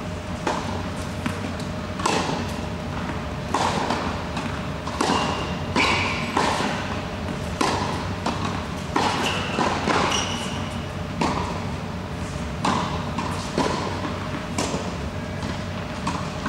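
Tennis balls being struck with rackets and bouncing on an indoor hard court during a backhand drill: a string of sharp hits, irregularly spaced about a second apart. They echo in the hall over a steady low hum.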